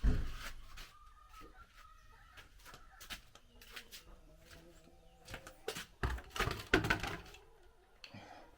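Bird calls over handling noise: a sharp thump at the start, scattered clicks, and a cluster of loud knocks and clatter about six to seven seconds in.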